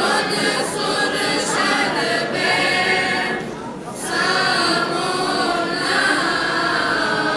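Mixed children's and teenagers' choir singing in sustained phrases, with a short pause for breath between phrases about halfway through.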